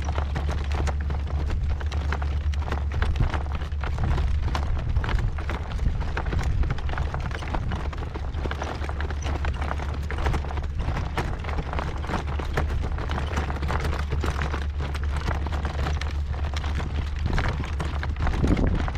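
A horse's hooves beating at a slow working trot as he pulls a light cart, with a heavy, steady rumble of gale-force wind on the microphone throughout.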